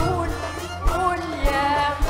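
Live Arabic orchestral music with strings and a woman singing, over low beats about every half second.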